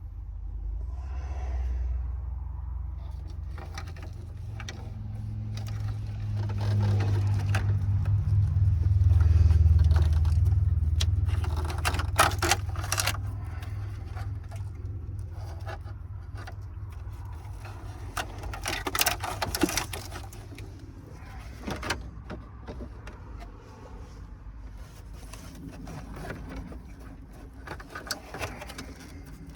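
A low rumble swells over roughly the first ten seconds and then fades. Scraping and clinking of tools and plastic dash parts being worked loose follows, with louder bursts about twelve and nineteen seconds in.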